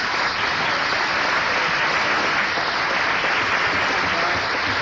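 Audience applauding steadily, welcoming a speaker who has just been introduced.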